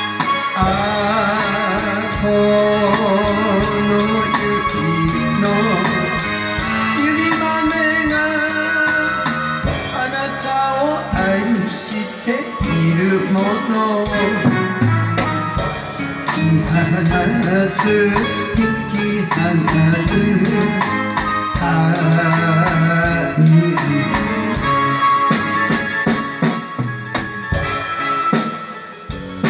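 Enka karaoke backing track with a wavering melody line, and a live drum kit played along to it in a steady beat.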